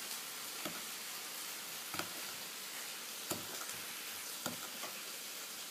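Knife chopping Thai chili peppers on a wooden chopping block: a few sharp knocks about a second apart. Under them runs a steady sizzling hiss of food frying.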